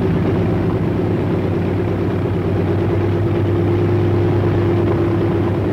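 Propeller aircraft's radial piston engine running at a steady speed while its cylinders are fogged with hot preservative oil vapour for storage. It gives an even drone with a constant low hum.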